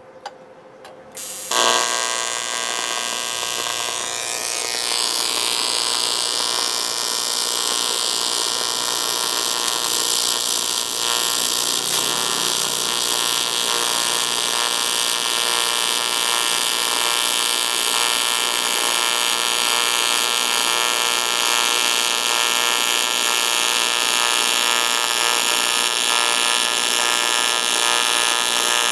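AC TIG welding arc buzzing steadily from a 250 A AC/DC TIG welder set to about 160 A with a 110 Hz AC frequency and 40% balance; the arc strikes suddenly about a second and a half in and then burns without a break.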